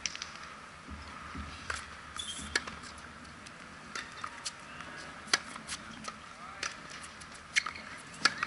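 Tennis rally on a hard court: sharp pops of the ball off racket strings and off the court, about one every second or so.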